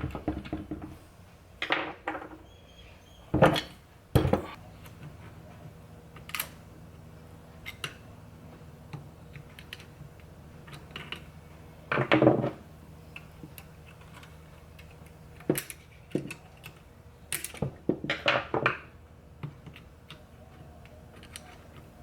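Scattered metallic clinks and knocks of hand tools working on a steering column's metal parts while a retainer is being removed, with a longer clatter about twelve seconds in and a quick run of clinks near the end.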